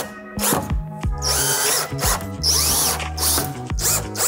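Cordless drill/driver driving #10 x 1 inch pancake head screws through a metal cleat into wood, its motor running in short repeated bursts.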